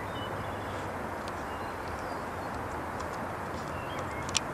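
Diesel freight locomotive approaching at a distance: a steady low rumble with a faint engine hum underneath. A few faint bird chirps come through, and a single sharp click sounds just before the end.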